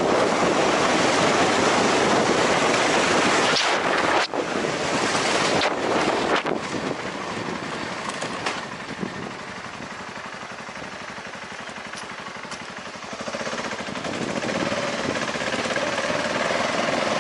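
Wind rushing over the microphone on a moving BMW G650GS, its single-cylinder engine running underneath, with sharp knocks and rattles from the bike hitting bumps on rough gravel a few seconds in. The wind eases about halfway, and the engine's steady note comes through more plainly near the end.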